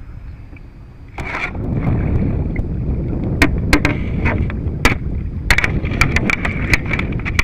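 Handling noise on a kayak-mounted camera: heavy rumbling and rubbing close to the microphone, with a string of sharp knocks and clicks, starting about a second in.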